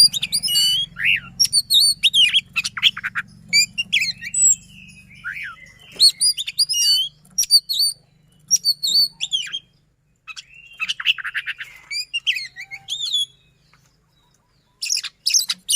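Oriental magpie-robin (kacer) singing a fast, varied song of sharp whistled notes, sweeps and rapid trills, breaking off briefly about ten seconds in and pausing near the end.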